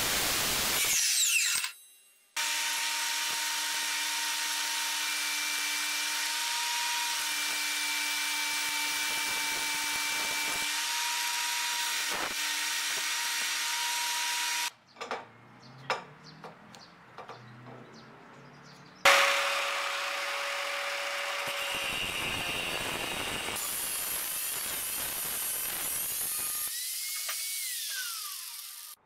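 Angle grinder with a sanding disc grinding a thin metal plate back to bare metal, in two long runs: a steady whine for about twelve seconds, a pause with a few knocks, then a second run of about eight seconds. Near the end the motor winds down with a falling whine.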